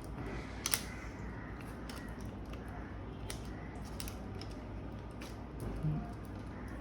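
Scattered small clicks and taps of a screwdriver and the metal drive bracket being fitted and screwed down inside a laptop, the sharpest click about a second in, over a steady low hum.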